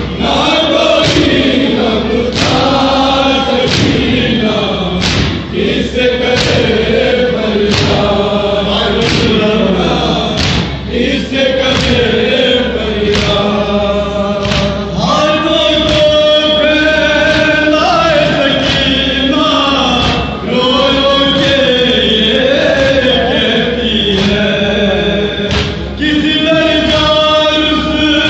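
A crowd of men chanting a Shia noha in unison behind a lead reciter, with rhythmic matam: hands beating on chests together in a steady beat, about once every second and a quarter.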